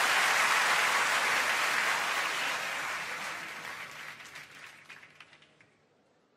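Audience applause, loudest at first and fading away over about five seconds.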